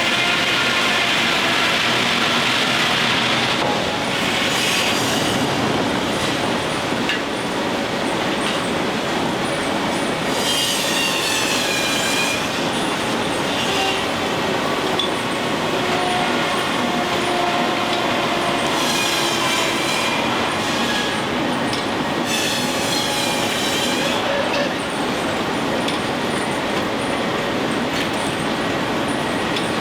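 Steam-powered machinery running with a steady, loud clatter, and a high wavering squeal four times: at the start, about ten seconds in, and twice around twenty seconds in.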